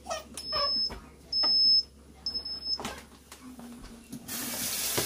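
Electric pressure cooker's control panel beeping three times, short high beeps about a second apart, as the cooking time is set. A steady rushing noise starts near the end.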